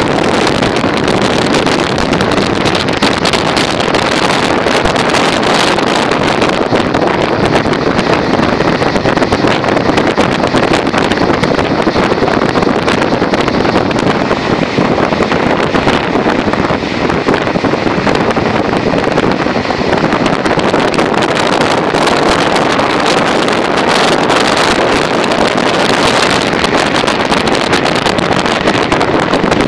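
Passenger train running at speed, heard at an open carriage window: a steady, loud rush of wind on the microphone mixed with wheel-on-rail noise.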